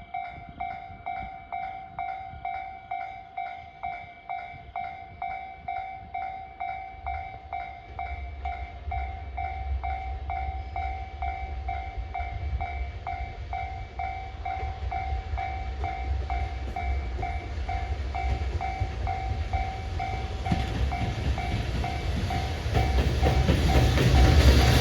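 Level-crossing alarm bell ringing in a rapid, steady repeating ding, while the rumble of an approaching freight train grows steadily louder from about eight seconds in.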